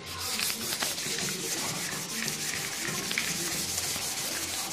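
Abrasive paper rubbed quickly back and forth by hand over a wet, soapy motorcycle rear mudguard: a steady scratchy scrubbing of rapid strokes. This is wet flatting the paintwork ready for the colour coat.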